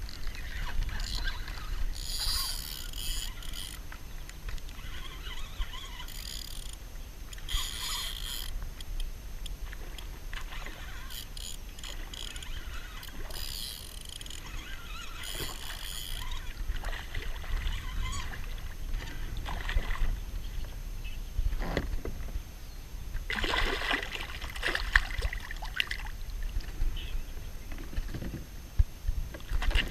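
Wind rumbling on the microphone over a kayak on open water, with bursts of splashing and handling noise as a small redfish is reeled in and brought aboard; the strongest burst comes a little over two thirds of the way through.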